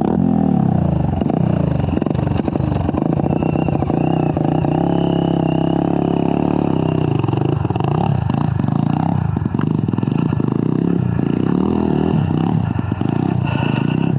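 Dirt bike engine running hard on a trail ride, its pitch falling, holding and rising again as the throttle opens and closes, with some clatter over the engine.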